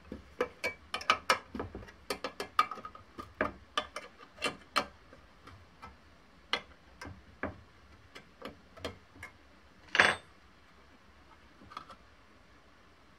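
Metal paint tin opener prying around the rim of a steel paint tin lid, making a run of irregular sharp metal clicks and taps. About ten seconds in comes one louder snap as the lid comes free.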